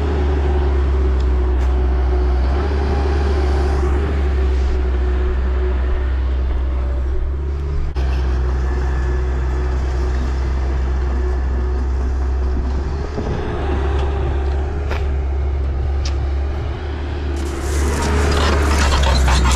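Diesel engine of heavy earthmoving equipment running steadily with a constant low drone. A louder rushing noise rises over it near the end.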